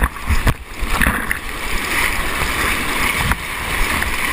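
River water rushing around a kayak, with a few paddle splashes in the first second or so, then a steady wash of moving water.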